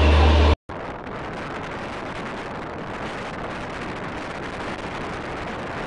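Moving passenger train heard from the side of the coach with wind on the microphone: a loud low rumble that cuts off abruptly about half a second in, then a steady rushing noise of the running train and wind.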